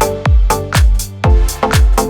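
Electronic house-style dance music with a steady kick-drum beat, about two beats a second, over sustained synth chords.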